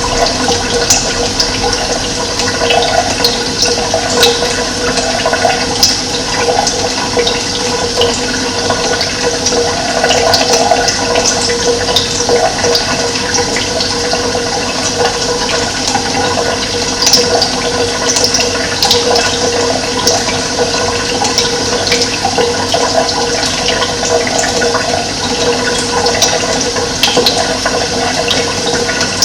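Running water, a steady rushing flow dotted with brief high splashing sounds.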